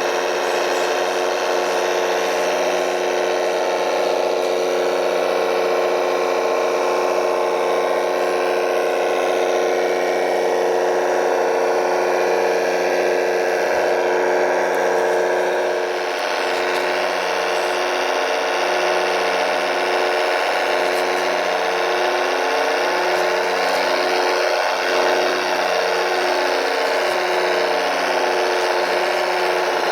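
Electric motors and gear drives of radio-controlled model trucks whining steadily, turning to a wavering, pulsing whine about halfway through.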